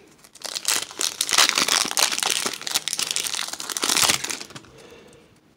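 Foil wrapper of a Pokémon card booster pack being torn open and crinkled by hand: a dense crackling that starts about half a second in and fades out near the end.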